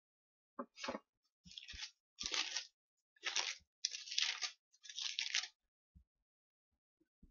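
Pages of a paper Bible being turned and rustled while a verse is looked up: about six short papery swishes over five seconds, then a couple of faint low taps.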